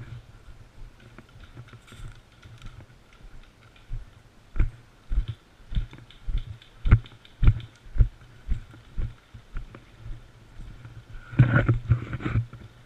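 Footsteps thumping about two a second, starting about four seconds in, with a louder flurry of knocks and rustling near the end.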